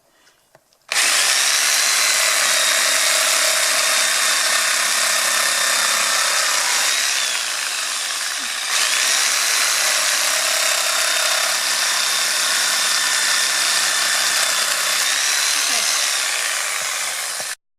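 Makita JR3050TZ corded reciprocating saw running loud and steady in two long stretches, its motor whine rising as it spins up and sagging briefly about halfway through before picking up again. It stops abruptly near the end.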